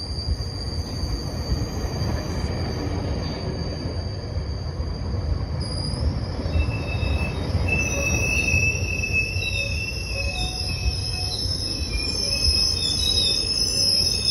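GO Transit bilevel passenger coaches rolling past as the train arrives, their steel wheels rumbling on the rails with high-pitched wheel squeal. A single steady squeal gives way, about six seconds in, to several overlapping squeal tones that come and go.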